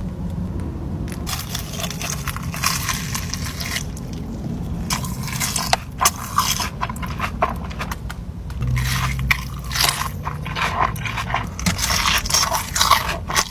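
Close-up eating sounds: irregular bites, crunching and chewing of food, mixed with scraping and handling of food containers.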